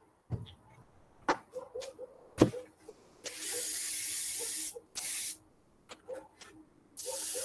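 Airbrush spraying paint in bursts of steady hiss: one of about a second and a half, a brief one, then another starting near the end. A few knocks and clicks come before the first burst.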